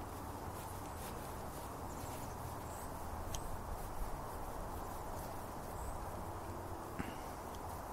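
A hand die in a T-handle die stock being turned on a small bolt to chase its threads, giving a couple of light metal clicks, over a steady outdoor background hiss with a few faint bird chirps.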